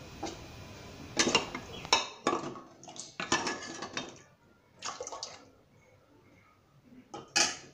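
Wooden spoon and ladle clinking and scraping against the metal sides and rim of a pressure cooker pot while boiled masoor lentils are stirred: a quick run of knocks over a few seconds, then one louder clink near the end.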